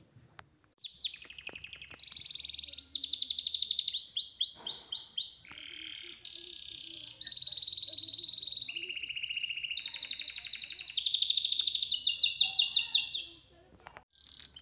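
A songbird singing a long, varied song from about a second in until near the end. The song is a string of rapid trills, each phrase a fast even run of one repeated high note, switching abruptly to a new note type from phrase to phrase.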